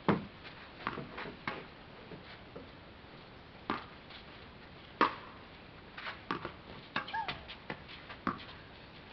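Tennis balls being struck and bouncing on an indoor court: a series of sharp, irregular pops, the loudest just after the start and about five seconds in, with a short squeak a little after seven seconds.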